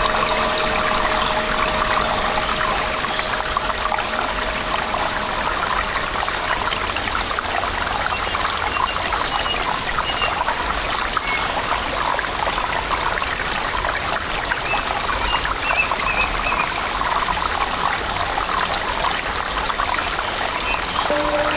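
Recorded nature sounds of a stream trickling steadily, with birds chirping here and there over it and a quick trill a little past halfway.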